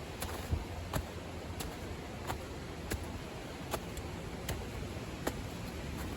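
Steady rushing noise of a waterfall, with a sharp light tick about every three-quarters of a second.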